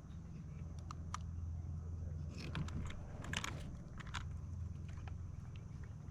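Scattered small clicks and crackles, a few close together about halfway through, over a low steady rumble.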